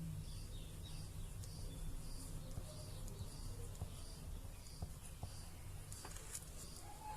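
A faint, high chirp repeating evenly about twice a second from a small animal, over a steady low hum.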